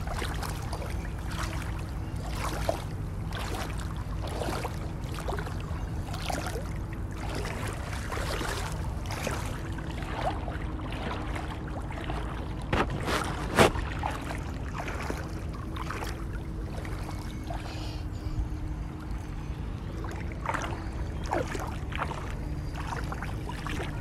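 Water sloshing and splashing around feet wading through shallow water, over a steady low rumble and a faint steady hum. Two louder knocks come about halfway through.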